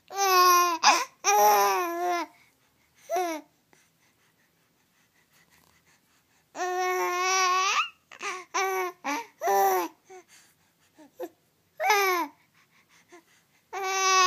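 Baby vocalizing in high-pitched squeals and coos, a string of separate calls from a fraction of a second to over a second long, some held steady and some sliding down in pitch, with pauses between them: a baby experimenting with its own voice.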